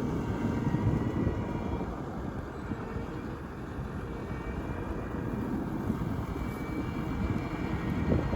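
Tractor and bale processor running steadily: a low, even rumble with a faint steady whine above it.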